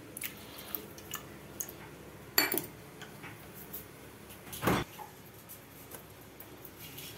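Scattered clinks and knocks of steel cooking pots and utensils, with a sharp clank about two and a half seconds in and a dull thump a little before five seconds.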